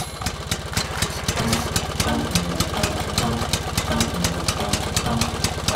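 Tractor engine sound with a steady, rapid, even chugging of several beats a second.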